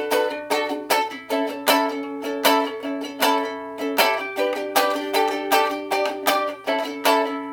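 A small acoustic string instrument strummed in a steady rhythm, about two to three chord strokes a second, with no singing.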